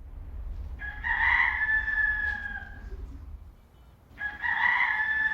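Rooster crowing twice: two long crows, each sliding slightly down in pitch, the second beginning about four seconds in, over a low steady hum. It is the chick starting to crow as it turns out to be a rooster.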